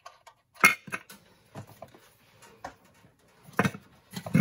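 Irregular knocks, clicks and rattles of a truck's air cleaner housing being unfastened and lifted off the carburetor. A sharp knock comes just under a second in, and a louder cluster of clatter comes near the end.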